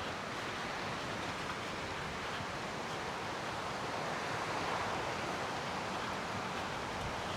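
Steady, even rushing outdoor ambience of wind and surf, with no distinct events.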